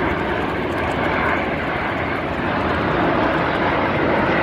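A formation of nine Aermacchi MB-339 jet trainers flying past, a steady jet engine rush that grows slightly louder about halfway through.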